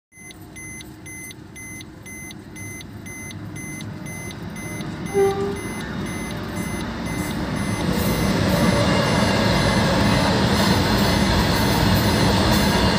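A freight train of open box wagons approaching and passing a level crossing: the rumble of the wagons grows and is loud and steady from about eight seconds in. Over the first half there is a regular electronic beeping, which fades out. A short horn blast sounds about five seconds in.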